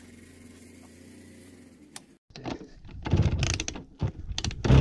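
A faint low hum, then a snow-covered Simson moped's single-cylinder two-stroke engine being kick-started: it fires and sputters in short, loud, ragged bursts, about three seconds in and again near the end.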